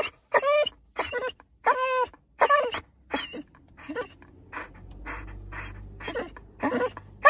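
American Staffordshire terrier whining and crying in a string of short, high, wavering cries, then panting for a few seconds before the cries start again near the end: impatient excitement at going for a walk.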